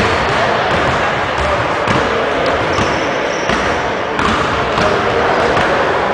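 Basketballs bouncing on a hardwood gym floor amid the steady echoing noise of a busy gymnasium, with a few short high-pitched squeaks near the middle.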